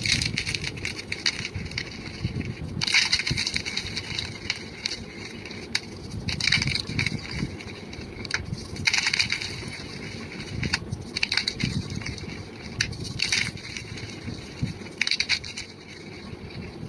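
Blocks of gym chalk being crumbled and crushed by hand, sped up: dry crunching and crackling that comes in repeated squeezes every couple of seconds.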